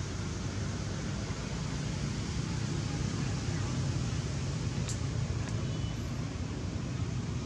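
Steady low rumbling outdoor background noise with a faint hiss, and one brief faint high chirp about five seconds in.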